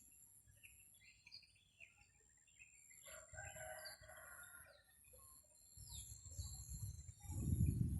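A rooster crows once, about three seconds in, among scattered small-bird chirps. Wind starts buffeting the microphone at about six seconds and becomes loud near the end.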